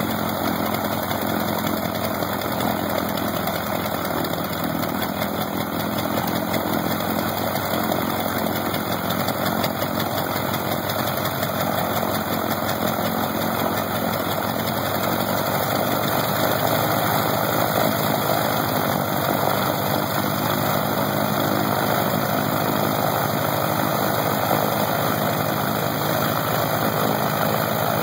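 Lycoming R-680 nine-cylinder radial aircraft engine running steadily on a test stand, turning its propeller; it gets a little louder about halfway through.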